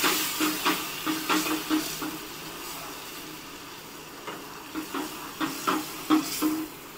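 Hot roasted semolina for sheero hissing and sizzling in a pan as milk goes in, loudest at first and dying down over the first few seconds. Throughout, a spoon scrapes and knocks against the pan in short strokes as the mixture is stirred.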